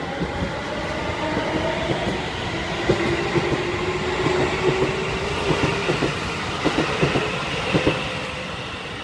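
Keikyu 1000 series electric train running past, with a steady rumble and a motor whine that rises slightly in pitch, while its wheels clack over the rail joints.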